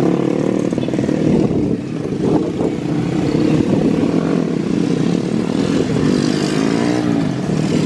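Motor vehicle engines running close by, like motorcycles, their pitch rising and falling as they rev and pass, with a downward sweep near the end.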